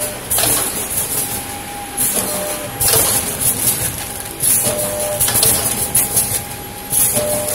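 Liquid sachet packing machine running its cycle: a hissing, clattering burst repeats about every two and a half seconds, each with a short mid-pitched tone.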